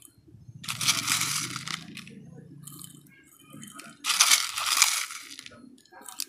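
Crushed brick chips crunching and rattling as a hand scoops them from a plastic bowl and presses them into a small terracotta pot, levelling a bonsai's top layer of fine substrate. Two gritty bursts about a second long, near the start and about four seconds in, with a brief one near the end.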